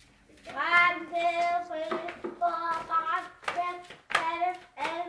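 Children's voices chanting in a sing-song rhythm, a call about every half second, with the thumps of feet landing as a woman jumps in place.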